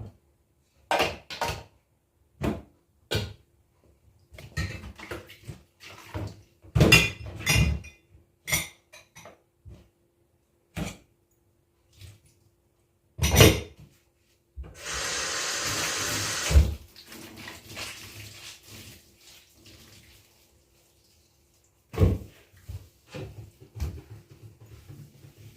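Dishes and kitchenware clinking and knocking as they are handled, with a water tap running for about two seconds midway, then more clatter.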